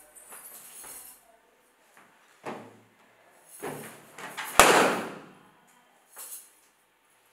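A balloon bursting with a single sharp bang about four and a half seconds in, the loudest sound here, after a couple of softer thumps.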